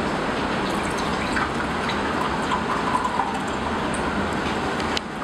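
Water pouring from a plastic filter pitcher into a glass beaker, splashing and trickling, over a steady background hiss and rumble.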